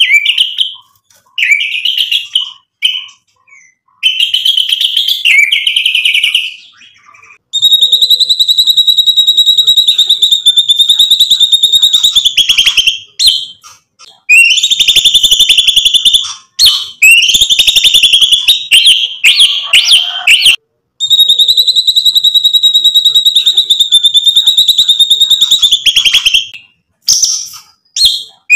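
White-rumped shama singing loudly: short rising whistled phrases for the first few seconds, then long, fast buzzing rattles held at one pitch for several seconds each, broken by short notes.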